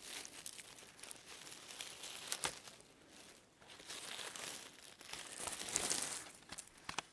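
Dry leaf litter and soil rustling and crackling as a hand digs around and pulls a porcino mushroom up out of the forest floor. It comes in bouts with a short lull about halfway and a few sharp clicks, and is loudest near the end as the mushroom comes free.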